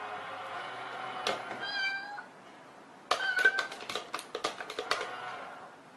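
Cat coin-bank toy running with a steady motor whir as its lid and paw pop out, a short meow about two seconds in, then a second or two of rapid clicks and taps as the cat paws at the box and its lid.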